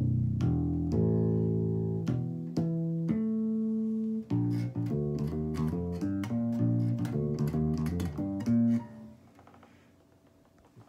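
Electric bass guitar played with a Fretwrap string dampener wrapped at the nut: a series of plucked notes, long and ringing for the first few seconds, then a quicker run of notes, dying away about nine seconds in.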